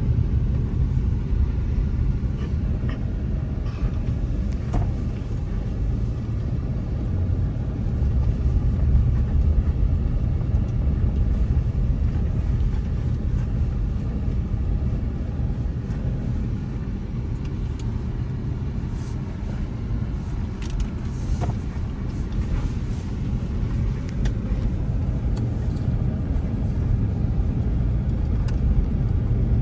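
Steady low rumble of a car driving, heard from inside the cabin, with a few faint clicks and rattles.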